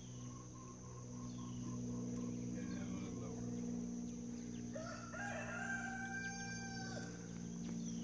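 A rooster crowing once, a call of about two seconds starting about five seconds in, over a steady high insect drone and a low hum.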